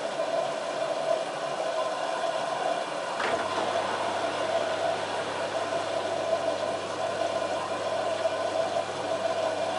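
LG F1443 washing machine running through its wash cycle: a steady mechanical hum, with a brief whine that rises and falls about three seconds in.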